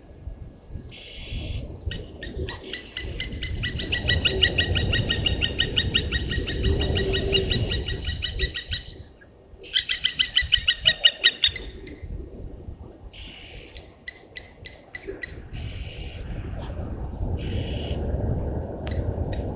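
Birds calling at a waterhole: a long rapid trill of evenly repeated notes, then a second, louder burst of trill, with short harsh calls in between, over a steady low rumble.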